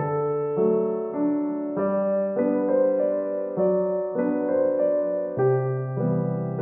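Background music: a piano-like keyboard playing a gentle tune, the notes and chords changing about every half second to second.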